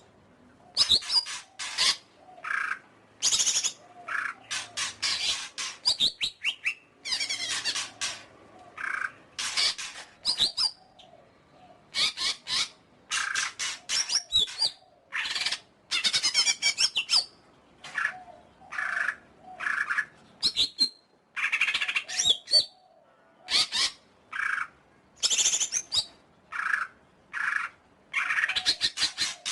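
Cucak ijo (green leafbird) singing: a rapid, varied song of sharp high notes and quick runs, delivered in short bursts with brief pauses between them.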